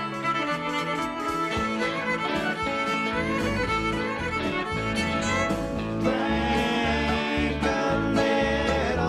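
A live band playing a country-flavoured rock tune, with a fiddle leading over guitar, keyboards and drums. A deep bass line comes in about three seconds in.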